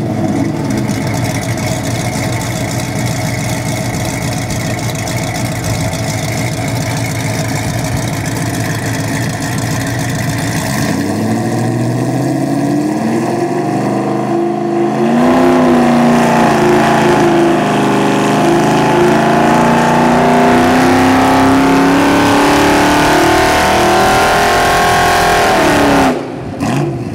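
Ford 302 small-block V8 crate engine with MSD Atomic EFI running on an engine dyno, heard from outside the dyno room. It idles steadily, then about eleven seconds in the revs climb, rise again a few seconds later and hold high for about ten seconds, then drop off sharply near the end.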